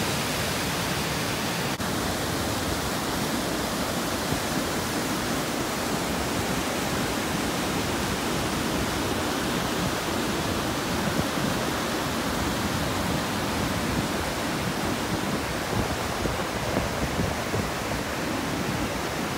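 Steady rush of a rocky brook's cascading falls, white water pouring over stone ledges.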